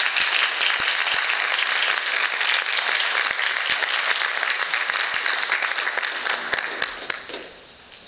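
Audience applauding, fading out about seven seconds in.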